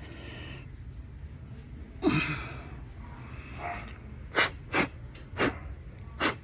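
A person's breathing: a longer breath about two seconds in, then four short, sharp puffs of breath over the last two seconds.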